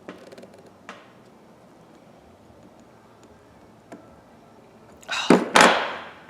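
Small metal clicks from ratchet parts and hand tools being handled during reassembly, then a loud double knock with a short clatter a little after five seconds in.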